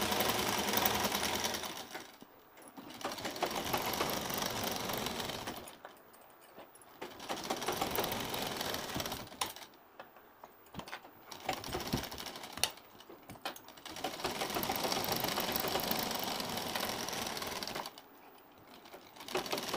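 Domestic sewing machine running a straight stitch through lace and blouse fabric, in several runs of a few seconds each, with brief stops between them while the fabric is turned.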